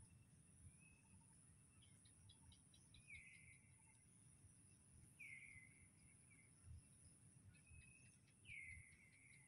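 Near silence with faint outdoor ambience: a steady high insect drone and a few short bird chirps, each falling in pitch.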